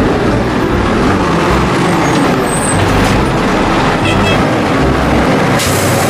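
Large truck running: a steady, dense engine noise with hiss across the whole range.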